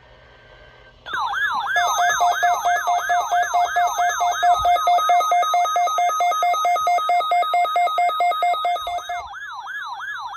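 Electronic siren-style alert from a weather-alert radio receiver, signalling an incoming severe thunderstorm warning. A fast up-and-down sweeping wail, about three sweeps a second, starts suddenly about a second in. A steady two-note tone sounds over it until near the end, when the sweeps carry on alone, a little quieter.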